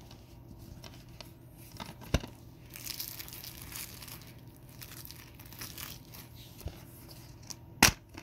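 Plastic shrink wrap on a DVD case crinkling and tearing as it is peeled off, in irregular crackles. A sharp click about two seconds in and a louder one near the end, as the plastic DVD case is snapped open.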